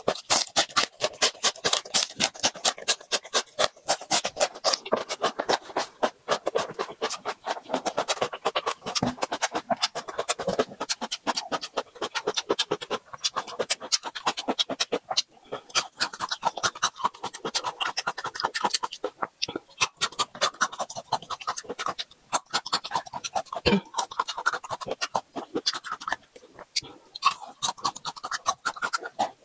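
Close-miked crunching and chewing of raw garlic, green garlic stalks and whole peeled garlic bulbs: rapid crisp crunches, several a second, with wet mouth sounds between.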